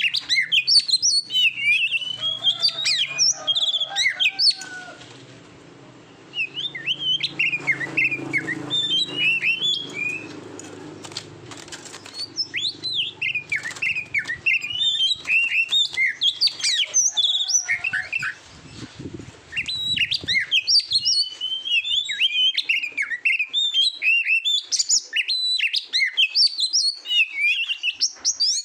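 Oriental magpie-robin singing a fast, varied stream of whistled notes and chirps. The song breaks briefly about a fifth of the way in and again about two-thirds through.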